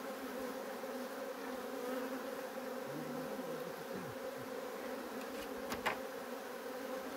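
Caucasian honeybees buzzing around an opened hive: a steady colony hum, with single bees droning past close by, rising and falling in pitch. The beekeeper calls the hum excessive and wonders whether the colony has lost its queen. A short tap comes near six seconds in.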